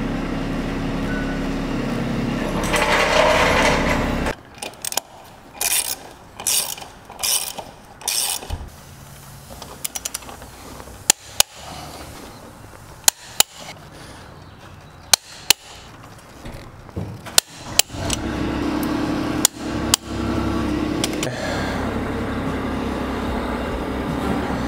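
Hand tools on a tractor wheel's lug nuts: short repeated bursts of a ratchet wrench, then a series of sharp single clicks, several in close pairs, typical of a click-type torque wrench reaching its setting. A steady mechanical hum runs at the start and again over the last several seconds.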